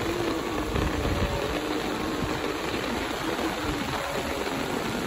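Heavy monsoon rain falling steadily: a dense, even hiss with a low rumble underneath.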